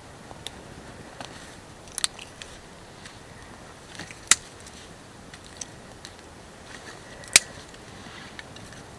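Small fire of dry grass and twigs crackling over a steady low hiss, with scattered sharp pops and two louder snaps, one about halfway through and one near the end.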